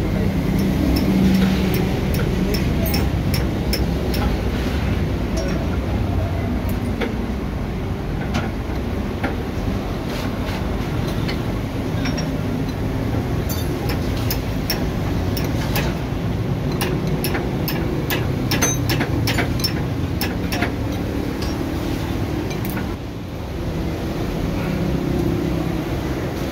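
Steady low vehicle rumble with many sharp clicks and taps scattered through it, and a brief dip in the rumble near the end.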